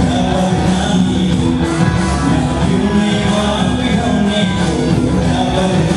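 Loud dance song with a singing voice over instruments, playing steadily without a break.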